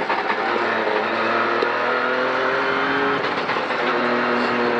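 The Ford Fiesta Rally3's turbocharged 1.5-litre three-cylinder engine running hard under acceleration, heard from inside the cabin. Its pitch climbs steadily from about a second and a half in, then drops a little about three and a half seconds in as the revs fall.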